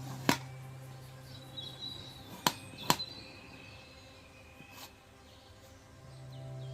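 A few sharp clicks of a spoon against a dish as boiled drumstick pods are scraped out: one just after the start and two close together about two and a half seconds in. Soft background music fades out early and comes back near the end.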